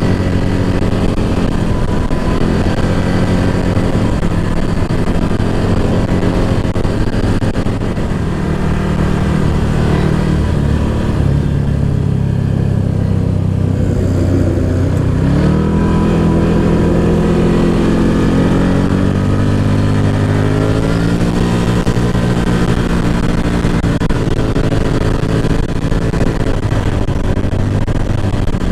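ATV engine running as it is ridden, its pitch easing off and then climbing as it accelerates about halfway through.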